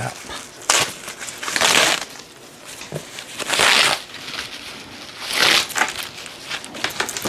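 Plastic wrapping crinkling in about four bursts as it is pulled off a bag strap and crumpled by hand.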